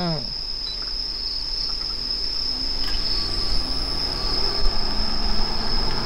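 EENOUR QN750 portable spot air conditioner starting up: a low motor hum comes in about two and a half seconds in and grows steadily louder as it comes up to speed.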